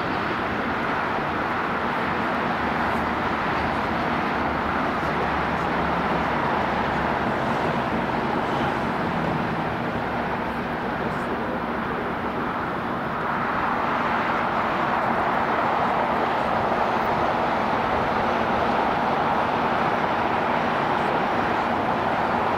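Jet engines of aircraft taxiing at an airport: a steady, continuous roar that grows louder about halfway through.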